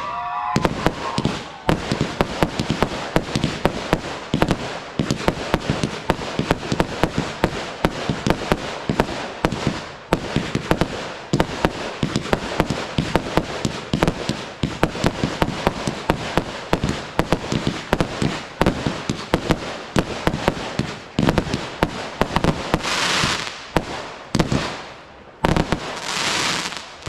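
Fireworks display: a dense, rapid barrage of bangs, many a second, with two hissing bursts near the end.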